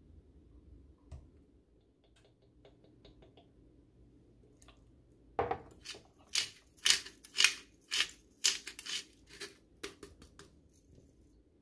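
Kitchen utensils and containers being handled while seasonings go into a sauce. Faint light ticks come first, then about halfway through a quick run of sharp clicks and scrapes lasting several seconds.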